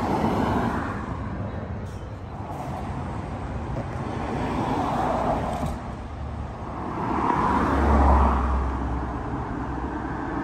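Road traffic passing: vehicles swell past and fade one after another. The loudest passes about eight seconds in, with a deep rumble.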